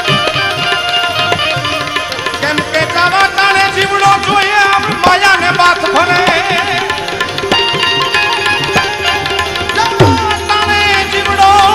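Live Gujarati bhajan: a harmonium holds sustained notes under tabla strokes, while a voice sings a long, gliding, ornamented line above them. Heavier low drumming comes in about ten seconds in.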